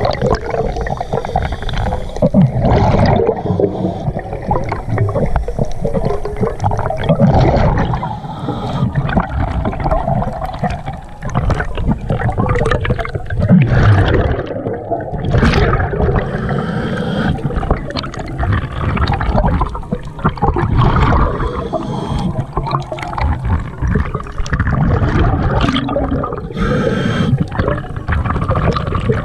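Scuba divers' exhaled bubbles gurgling and rumbling underwater, heard muffled through the camera's waterproof housing, with louder surges every few seconds over a steady rush of water.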